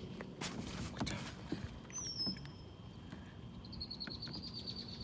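A few soft knocks and handling bumps in a plastic kayak, then a short falling whistle about two seconds in, and a fast, even trill of high notes from birds in the reeds near the end.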